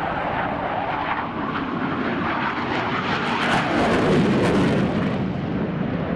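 Jet noise from an F-15J fighter's twin turbofan engines during a display pass. It is a steady roar that swells to its loudest about four seconds in, then eases off.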